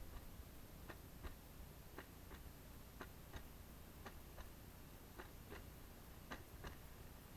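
Electric skateboard wheels clacking over seams in the pavement, a pair of light clicks about once a second as front and rear wheels cross each joint, over a low steady rolling rumble.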